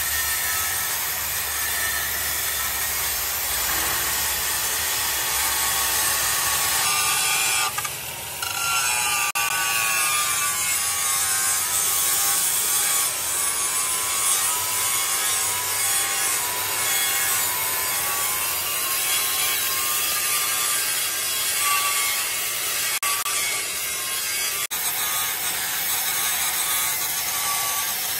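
A power tool steadily cutting or grinding metal, a harsh scraping noise with a wavering whine, briefly interrupted about eight seconds in.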